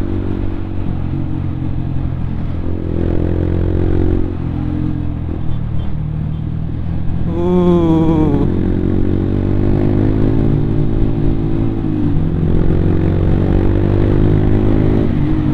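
Yamaha Byson motorcycle's single-cylinder four-stroke engine running under way, its pitch shifting with the throttle, over road and wind noise. A brief wavering tone sounds about halfway through.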